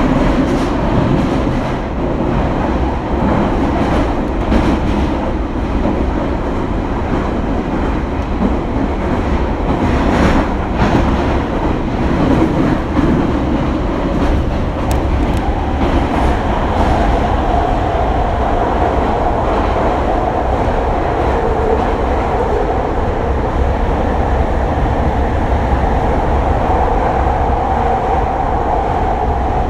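Running noise of an E721-1000 series electric train travelling through a railway tunnel: a loud, steady rumble of wheels on rail with a few clicks. About halfway through, a steady high hum joins the rumble and holds.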